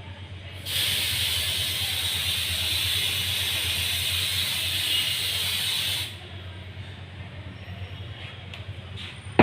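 Aerosol can of penetrant-test developer spraying in one continuous hiss of about five seconds, starting sharply and cutting off suddenly: the developer coat is being sprayed on during a liquid penetrant test.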